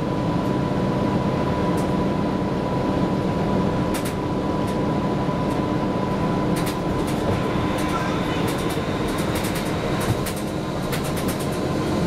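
Inside a 1994 TMC RTS bus under way: its Detroit Diesel Series 50 engine and Allison transmission drone steadily, with a steady high whine. Scattered clicks and rattles come through, more of them in the second half.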